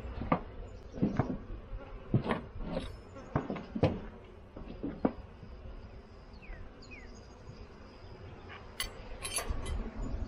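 Sharp knocks and clinks of a beehive inspection: wooden frames and a metal hive tool being worked in a hive box. There are eight or so strokes in the first five seconds and a brighter cluster of clicks near the end, with honey bees buzzing around.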